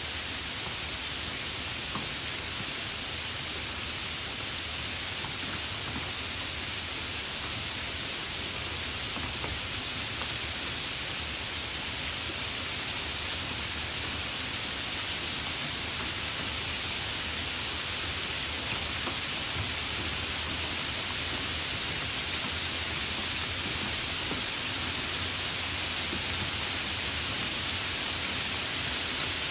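Steady, even hiss of noise, like rain or static, with a few faint ticks scattered through it.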